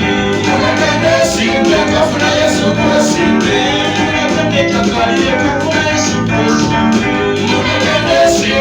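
Church worship music: singing over instruments, with percussion keeping a steady beat.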